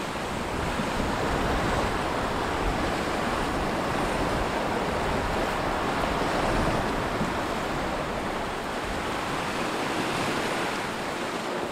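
Lake Superior waves washing against a rocky shoreline: a steady rush of choppy water that swells and eases a little, with some wind.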